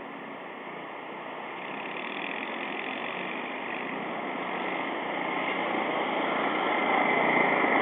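A vehicle engine running steadily with a hissing hum, slowly getting louder toward the end.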